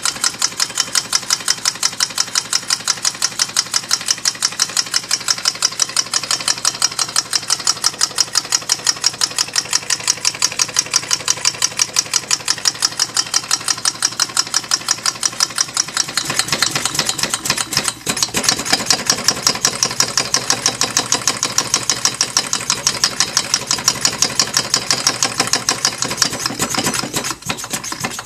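Homemade twin-cylinder compressed-air motor, its pistons set about 10 degrees apart, running on 70 psi shop air: a rapid, even train of exhaust puffs as the flywheel spins. The sound gets a little fuller a little past halfway.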